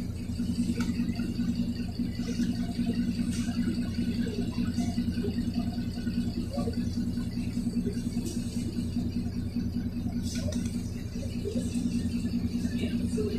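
Cummins ISBe diesel engine of a NefAZ 5299 city bus, heard from inside the passenger cabin, running steadily at low revs with a constant low hum. Light rattles from the cabin come and go over it.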